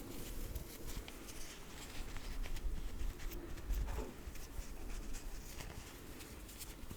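Cotton pads being wiped and rubbed close to the microphone: soft, irregular scratchy rubbing with light taps.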